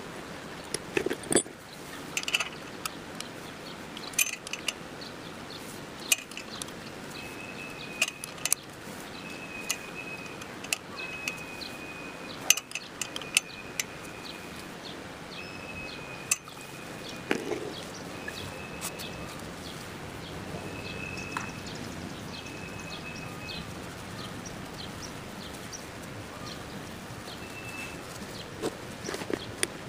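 Scattered metallic clicks and clinks of hand tools and parts as a motorcycle's gear shift lever is refitted. A short high note repeats every second or two behind them.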